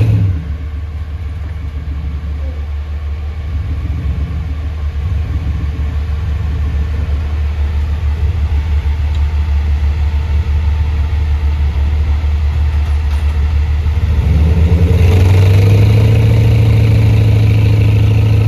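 Off-road rock crawler's engine running low and steady, building gradually and then revving hard for the last few seconds as the rig strains to climb a steep rutted hill. It doesn't have enough to get up: its wheels are wedged down against the rock embankment.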